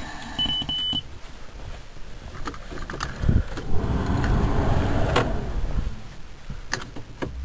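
Two short electronic beeps from the car stereo, then keys jangling and rustling as the ignition key is handled and turned to switch the ignition on. The engine is not yet running, with a few clicks near the end.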